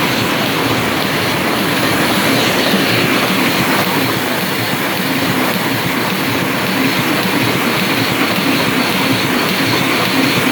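Offset printing press running steadily: a dense, continuous mechanical clatter.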